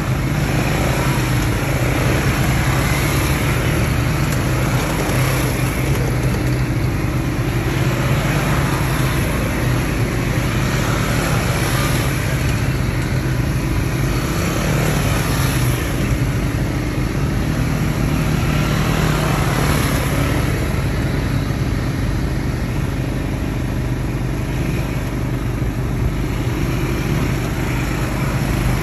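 ATV engine running steadily while riding, with a constant rush of noise over it.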